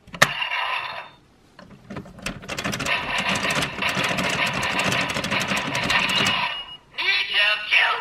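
Bandai DX Geartlinger toy blaster: a plastic click as a Sentai Gear is set in, then rapid ratcheting clicks as the gear is spun, mixed with the toy's electronic sound effects from its speaker. Near the end a short recorded voice call comes from the toy.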